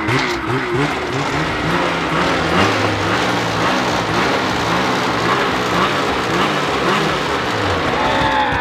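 Ski-Doo snowmobile's two-stroke engine being revved in repeated throttle blips, its pitch rising and falling again and again while it puts out exhaust smoke.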